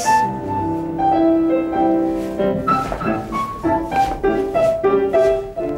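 Piano music: a melody of separate struck notes over held lower notes.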